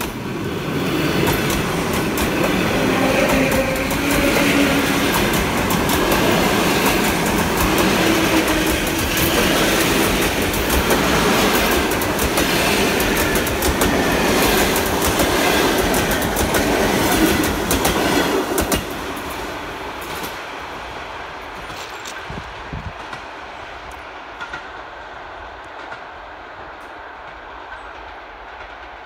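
ED4M electric commuter train passing close by at speed: a loud rush with rapid wheel clatter over the rail joints and steady tones over it. The sound drops off suddenly about 19 s in as the last car passes, then fades as the train moves away.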